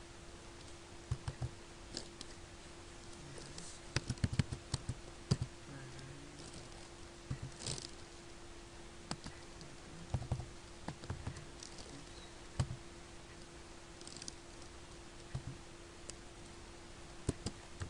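Computer keyboard being typed on, with irregular bursts of key clicks and pauses between them, over a steady low hum.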